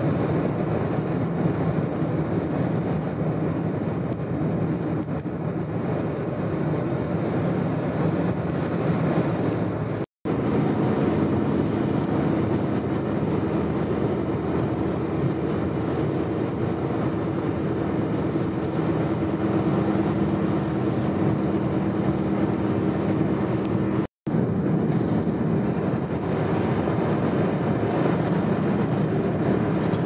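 Steady rushing wind and road noise of a vehicle driving through a blizzard, with a steady engine hum in the middle stretch. The sound cuts out for a moment twice.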